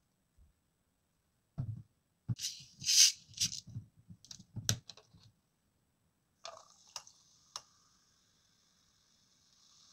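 Plastic cola bottle handled and its cap twisted open, with clicks and loud hisses of escaping gas. About six and a half seconds in, cola is poured over ice in a glass and then fizzes with a steady hiss.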